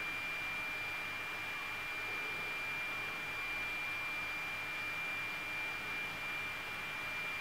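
Steady background hiss with a thin, high whine held at one pitch throughout.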